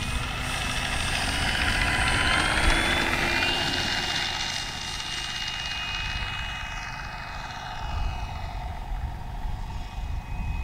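Electric RC model Vought F4U Corsair taking off: its brushless motor and four-bladed propeller whine, rising in pitch as it throttles up on the ground run. The whine is loudest about two to three seconds in, then grows quieter as the plane climbs away, over a low rumble.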